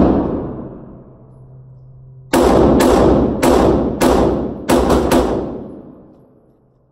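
Sig Sauer P365 9mm pistol fired six times in quick succession, starting about two seconds in, the string lasting under three seconds. Each shot rings out with the long reverberation of an indoor range. Before the string, the echoing tail of an earlier shot fades away.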